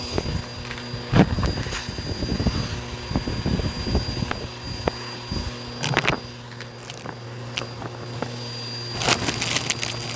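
Bissell vacuum running with a steady hum and a high whine, with scattered clicks and crackles of debris over it. About nine seconds in, a loud rush of noise starts as the attachment goes onto the debris-strewn shag rug.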